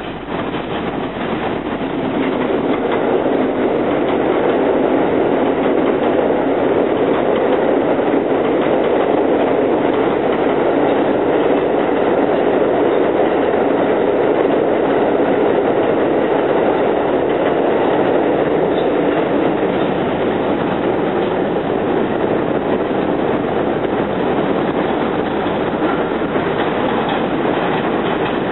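An R160B subway train running through an elevated station on the express track without stopping, with an R68 subway train pulling out alongside it. The steady running noise of steel wheels on rail builds over the first couple of seconds, then holds loud and even.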